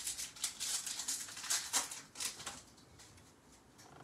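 Upper Deck hockey trading cards being flipped one after another in the hands, a quick run of soft flicks and slides that dies down after about two and a half seconds.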